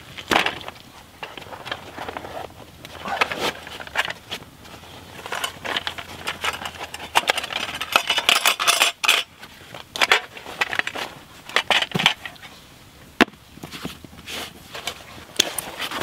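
Camp cooking kit being handled and unpacked: a metal pan and plate clink, clatter and scrape, and canvas bags rustle, in a string of short irregular knocks.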